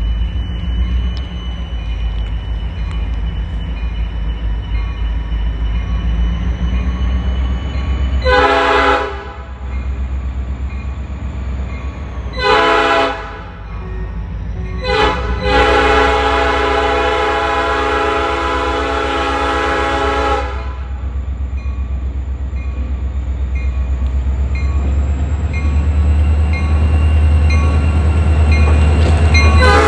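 Steady low diesel-engine rumble under loud air-horn blasts: a short blast about eight seconds in, another about four seconds later, then a long blast of about five seconds near the middle, and another starting near the end.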